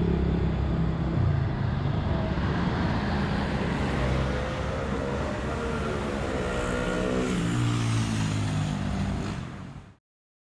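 Road traffic: motor vehicle engines running close by, one engine's note rising and then falling about halfway through. The sound fades out quickly near the end.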